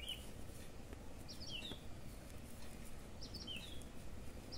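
A bird chirping faintly: a short call of two or three quick high notes, repeated four times about every one and a half to two seconds, over faint steady room noise.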